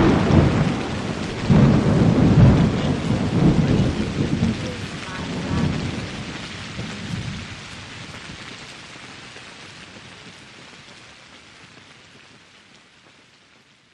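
A thunderstorm sound effect: steady rain with several rolling thunder rumbles in the first half, then the whole storm fades out gradually to silence.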